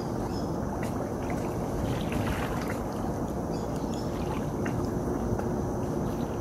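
Steady outdoor rush of wind and river water, with a faint steady hum and a few light clicks.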